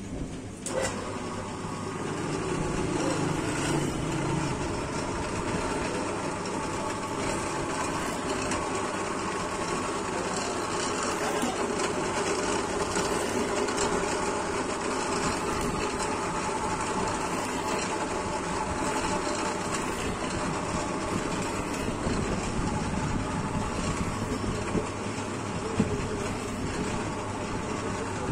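A workshop machine's electric motor running steadily with a hum, with a sharp click just under a second in and a single knock near the end.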